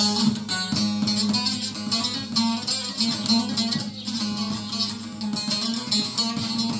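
Two bağlamas (long-necked Turkish sazes) played together, plucking a quick folk melody over a steady drone: the instrumental passage of a türkü.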